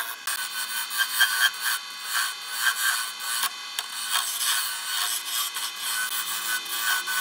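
A flat chisel cutting a spinning wooden spindle on a wood lathe, throwing off fine shavings: a continuous rough scraping with many irregular sharp ticks as the edge bites the wood.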